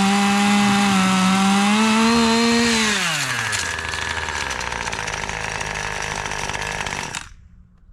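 Husqvarna 540 XP Mk III two-stroke chainsaw running flat out in the cut, then its revs drop sharply about three seconds in. It carries on lower and rattling for a few seconds before the engine cuts off suddenly near the end. This is the sound of a failure of the new saw on its first run, which the owner cannot explain.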